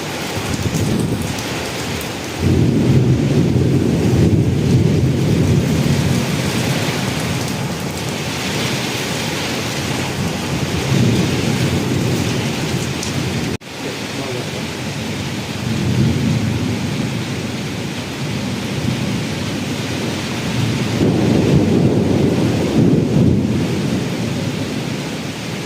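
Steady rain with long rolls of thunder: a loud rumble comes in sharply about two seconds in, and further rumbles swell later on. The sound cuts out for a moment about halfway through.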